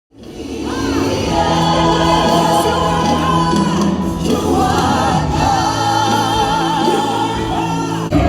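Gospel music: several voices singing together over sustained chords, with a lead voice holding a long, wavering note. It swells in over the first second.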